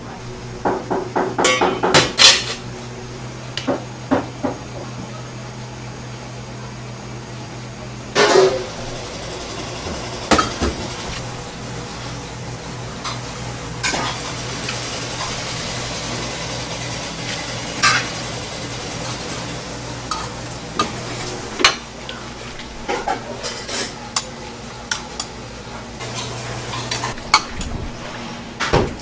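Restaurant kitchen work with utensils against bowls and pots: a quick run of clinks in the first two seconds, then scattered clinks and knocks, over a steady low hum.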